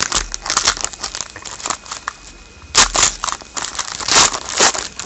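Hockey card pack wrapper being torn open and crinkled in the hands, in irregular bursts of crackling with the loudest rustles past the middle.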